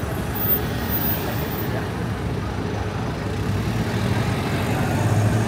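Road traffic running close by: the steady rumble of cars, vans and taxis moving along a busy city street, a little louder near the end.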